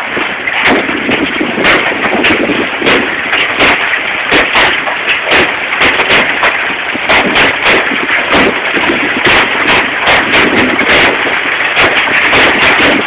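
Hail pelting down hard: a dense, steady rattle of hailstones with many sharp individual cracks of larger stones striking.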